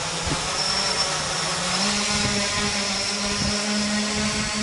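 Quadcopter's electric motors and propellers whining steadily as it lifts off and hovers, with a low hum and a high-pitched whine; the pitch steps up slightly about two seconds in as the motors speed up.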